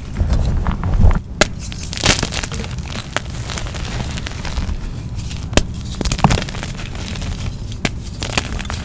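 Hands crushing and squeezing crumbly chunks of reformed gym chalk and cornstarch powder in a bowl of loose powder: soft powdery crunching with several sharp cracks as the chunks break, and dull thumps about a second in.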